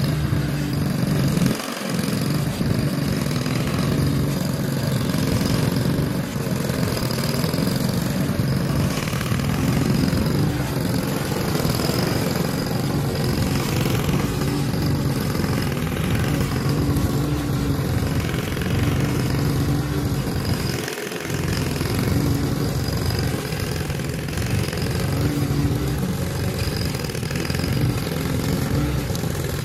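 Honda walk-behind lawn mower's four-stroke engine running steadily under load as the mower cuts through tall, overgrown grass.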